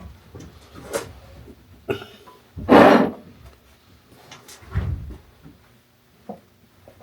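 Rummaging and handling noises: a run of knocks and clatters, the loudest a scraping rattle lasting about half a second, three seconds in, with another knock near the five-second mark.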